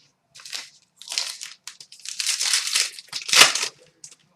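Foil trading-card pack wrapper crinkling and crumpling in the hands in a run of irregular rustles, loudest about three and a half seconds in.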